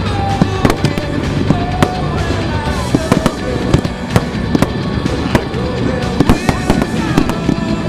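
Fireworks finale: a rapid barrage of aerial shell bursts and crackling reports, several bangs a second over a continuous rumble, with whistling tones gliding slightly downward through it.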